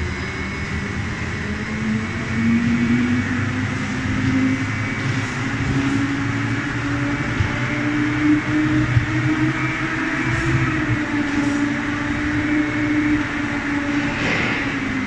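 Veneer peeling line running: a spindleless rotary lathe peeling a log into veneer, feeding a veneer clipper and conveyor. A steady machine hum with a motor tone that rises slightly about two seconds in and drops away near the end.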